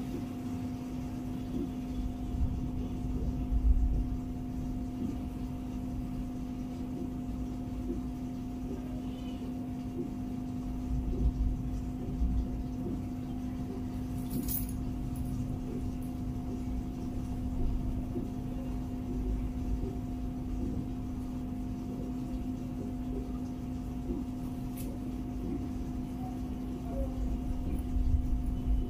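Steady low hum with a fainter, higher steady tone above it, under a low rumble that swells now and then; a single sharp click about halfway through.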